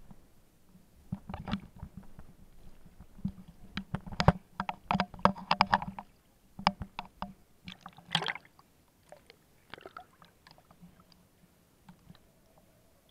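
Sea water splashing and sloshing against a hand-held camera at the surface, with irregular sharp knocks and slaps from handling. The knocks are busiest in the first two-thirds and thin out near the end.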